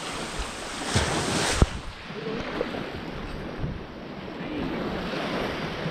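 Waves washing on a beach, with wind buffeting the microphone, and one sharp click about a second and a half in.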